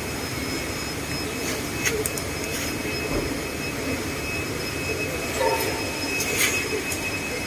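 A steady background roar, with a few light clicks and rattles from a coiled black hose and cable being unwound and handled.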